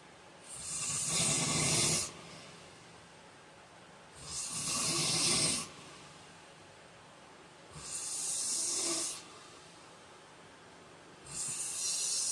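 A heavyset man snoring in his sleep: four loud snores, each about a second and a half long, coming roughly every three and a half seconds, with quieter gaps between.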